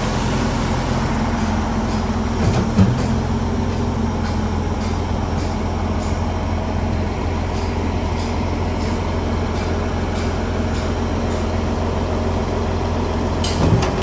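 Heavy diesel engine of a Mack concrete pump truck running steadily while it drives the Schwing boom pump. There is one brief knock a little over two and a half seconds in, and a few sharp clicks near the end.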